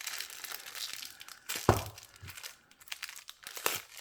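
Knife packaging crinkling and tearing as it is opened by hand, with one sharp snap a little under halfway through and a few lighter clicks later.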